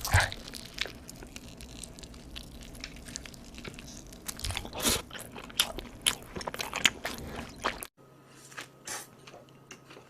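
Close-up eating sounds: someone biting into and chewing crunchy food, a run of sharp, irregular crunches. A little before the end it cuts abruptly to a quieter clip with a few soft chewing clicks.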